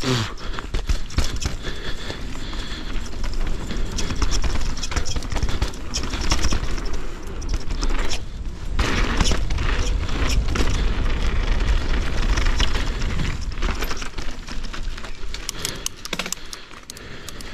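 A 170 mm-travel enduro mountain bike riding fast over rough singletrack: a dense, rapid clatter of chain, frame and tyres striking rocks and roots, over a low rumble of wind on the camera microphone.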